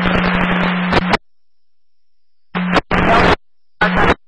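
Police scanner radio: a hissing burst of static on a keyed channel that cuts off about a second in, then two shorter static bursts near the end, each with a steady low hum under it.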